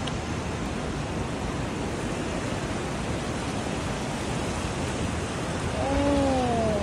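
Fast, muddy river floodwater rushing past in a steady, even wash of water noise. A person's voice starts near the end.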